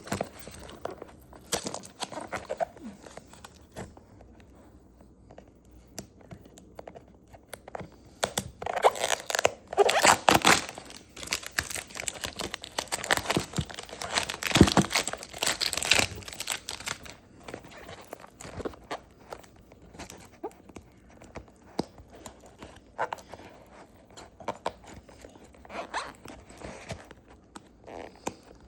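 A small shipping package being torn and crinkled open by hand, with irregular tearing and crackling of packaging that is busiest in the middle stretch. The packaging resists, and scissors are needed afterwards.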